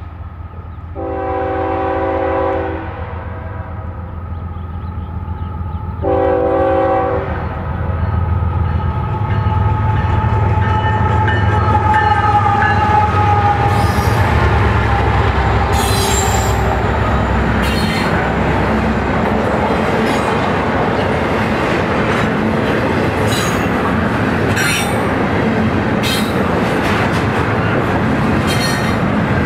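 Diesel freight locomotive horn sounding two blasts, a long one then a shorter one, as the train approaches. The locomotives' engines rise to a loud rumble as they pass about 13 seconds in, followed by the steady rattle of double-stack container cars with wheel clicks over rail joints every second or two.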